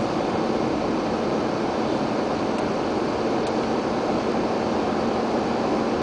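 Steady in-cabin driving noise from a car at highway speed on a snowy road: tyre, engine and wind noise blended into one even sound.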